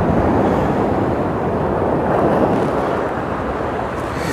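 Steady rushing of wind on the microphone and sea surf breaking on the shore, easing a little in the second half.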